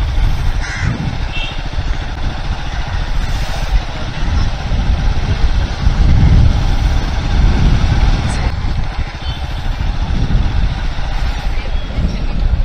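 Royal Enfield motorcycle engine running at low riding speed, with wind buffeting the bike-mounted microphone.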